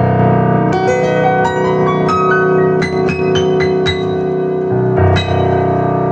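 Piano with the Yamaha CFX grand piano sound playing a slow ballad: held chords with a few single high notes struck over them, then a new low chord about five seconds in.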